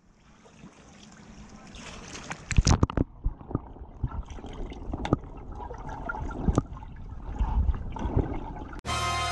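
Water in a swimming pool heard at and under the surface by the camera's microphone: fading in, then muffled sloshing and gurgling, with sharp knocks a few seconds in and more scattered through as a swimmer moves underwater. Music with brass and drums cuts in abruptly near the end.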